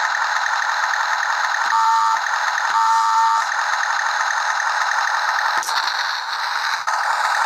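Tiny built-in speaker of a 1/72 remote-control Tiger tank toy playing its tinny, hissing engine-and-rattle sound effect, with two short tones about two and three seconds in and a click or two near the end.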